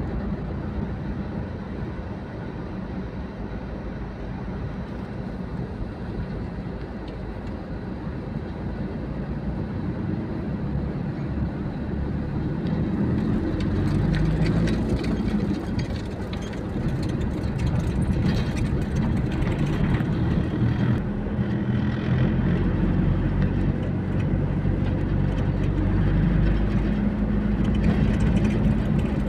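City traffic heard from a moving vehicle: steady engine and road rumble from cars and box trucks close by, growing somewhat louder about halfway through.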